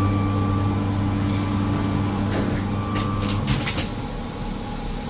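Steady low machine hum that cuts off about three and a half seconds in, with a few sharp clicks and knocks just before and as it stops.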